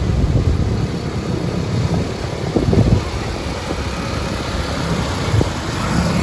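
A vehicle engine running steadily as a low rumble, with a few short knocks about two and a half to three seconds in.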